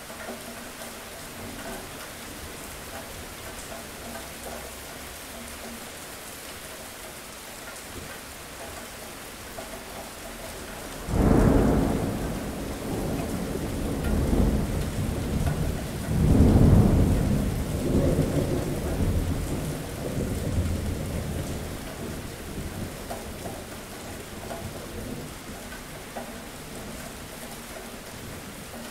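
Steady rain with a clap of thunder about eleven seconds in that rolls on as a deep rumble. It swells again a few seconds later and dies away over about ten seconds.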